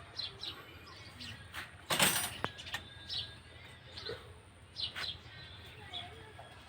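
Small birds chirping in short, scattered high calls, with a brief loud rustling burst and a sharp click about two seconds in.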